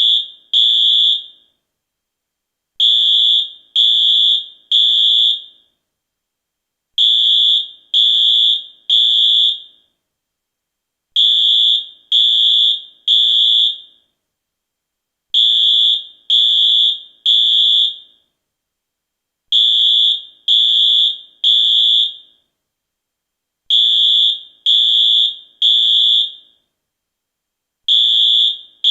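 US fire alarm sounding its evacuation signal: three high-pitched beeps, then a pause, repeating about every four seconds. This is the Temporal-3 pattern that signals a fire evacuation.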